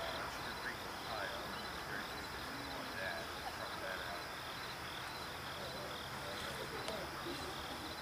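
Insects chirping in a steady pulsing rhythm, high-pitched, with faint distant voices underneath.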